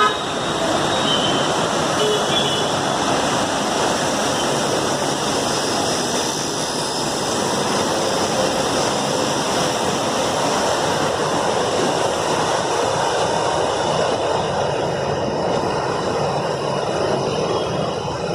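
A steady, even rushing noise with no rhythm or pitched tone, unchanging in level.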